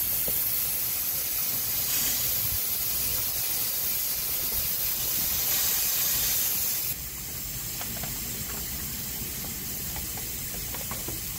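Live steam hissing steadily from the US Navy G-type marine steam engine as it warms up with the throttle just cracked, before the shaft turns. The hiss drops a little about seven seconds in.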